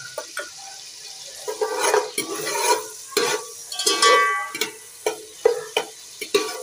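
A metal slotted spoon knocks and scrapes against an aluminium cooking pot as chopped green chillies go into hot ghee and butter, which sizzles lightly. There are irregular clanks throughout, with a ringing clang about four seconds in.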